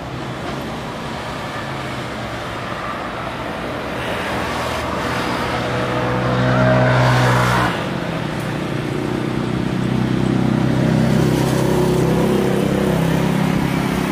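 Jet engines of a Boeing 737-800 (CFM56 turbofans) during touchdown and the landing roll: a steady rumble with a low hum that swells, drops off suddenly about halfway, then builds again toward the end.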